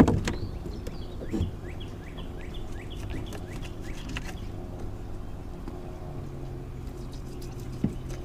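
A sharp knock, then a bird calling: a run of short, falling chirps, about three a second, for the first four seconds or so. A steady low hum runs underneath.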